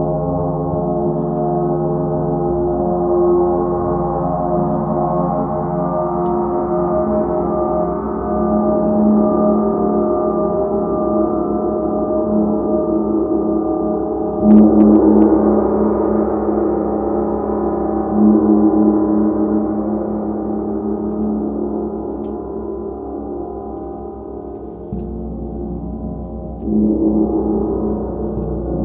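Large hanging gong played with soft felt mallets: a continuous, swelling wash of many overlapping tones. Fresh, louder strokes come about halfway through (the loudest), again a few seconds later, and twice near the end.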